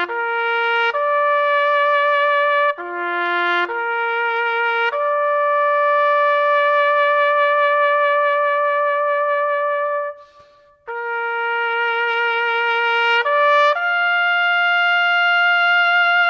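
A solo trumpet plays a slow melody of long held notes with vibrato, stepping between a few pitches. One note is held for about five seconds, there is a short break about ten seconds in, and the line ends on a higher held note.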